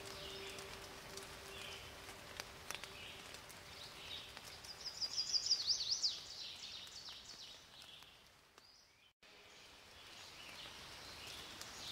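Faint birdsong: scattered short chirps from small songbirds, with a louder rapid trill of quick repeated high notes about halfway through. The sound dips almost to silence for a moment about three-quarters of the way through, then resumes.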